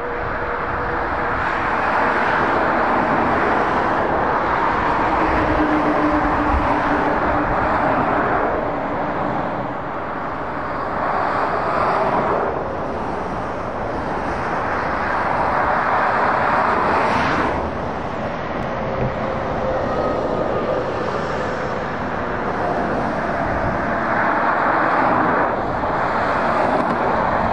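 Motorway traffic of lorries and cars passing: tyre roar and diesel engines rise and fall several times as vehicles go by.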